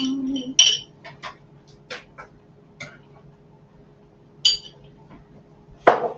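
A utensil scraping out a nearly empty glass jar of tomato paste: a run of clinks and taps on the glass, two of them ringing briefly, and a sharp knock near the end.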